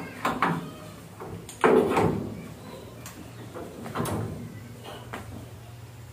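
Metal clanks and knocks from a single-cylinder diesel engine being worked by hand, with its crank handle, for a manual hand-crank start. The loudest knock comes about two seconds in, with a few more near four and five seconds; the engine has not fired.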